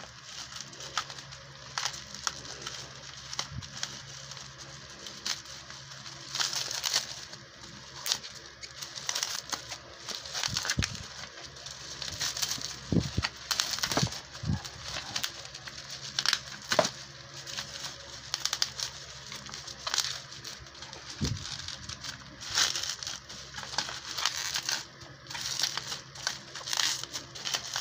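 Clear plastic bubble wrap crinkling and rustling in irregular crackles as it is unwrapped by hand from a new flashlight, with a few soft handling thumps around the middle.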